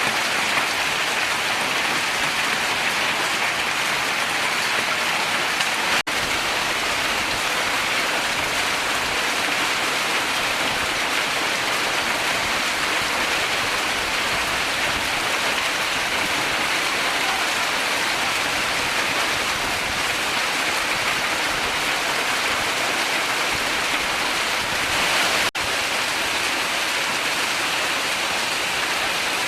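Heavy rain of a hailstorm falling steadily, a dense continuous patter. It cuts out for an instant about six seconds in and again near the end.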